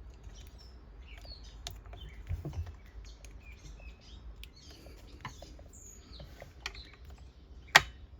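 Birds chirping in the background, mixed with small clicks and knocks of parts being handled and fitted; one sharp click near the end is the loudest sound.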